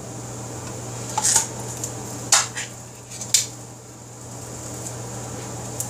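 Three sharp metallic clinks, about a second apart, as a tin can of condensed cream of mushroom soup knocks against a metal slotted spatula while the soup is shaken out of the can.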